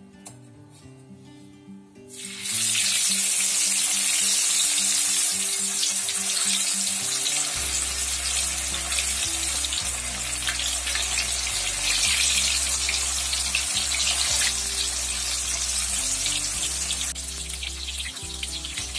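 Cassava pieces frying in hot oil in a wok. A loud, steady sizzling and bubbling starts suddenly about two seconds in as the batch goes into the oil, and eases somewhat near the end. Soft background music plays throughout.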